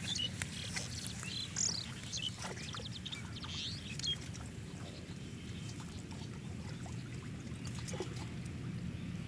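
Pond water sloshing and splashing as a person wades waist-deep and gropes through it by hand, pulling branches out of the water. Birds chirp in the first few seconds.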